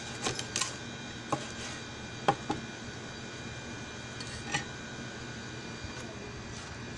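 Cleaver knocking and tapping on a plastic cutting board while a fish is split and cleaned: a few sharp, scattered knocks, the loudest about two seconds in.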